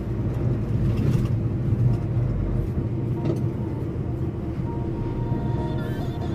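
Truck engine and road noise heard from inside the cab while driving: a steady low drone, with a couple of faint knocks.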